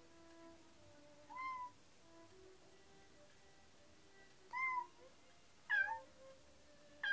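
A cat meowing four times, short rising-and-falling meows, the last three louder and closer together, over faint background music.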